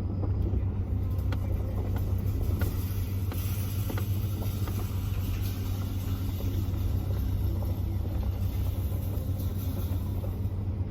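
Truck engine running as the truck moves slowly, a steady low drone heard from inside the cab, with a few faint ticks.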